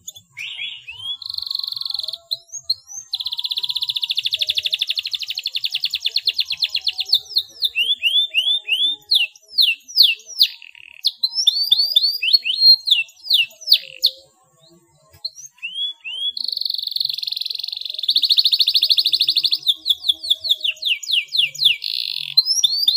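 Domestic canary singing a full song with long, fast rolls and strings of quick downward-sweeping notes, pausing for about two seconds in the middle before starting again.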